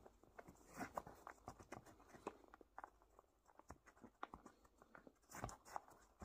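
Near silence, broken by faint, scattered small clicks and soft rustles.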